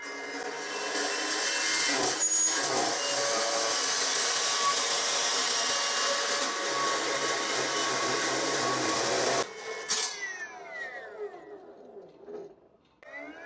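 Electric motor-driven saw blade cutting through material, a loud, even grinding noise over the motor's whine for about nine seconds. It then stops cutting and the motor is switched off, its whine falling in pitch as the blade spins down; near the end the motor starts up again.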